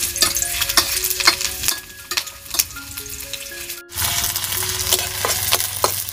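Food frying and sizzling in hot oil, stirred with repeated sharp scraping strokes of a spatula. The sound breaks off briefly near the middle.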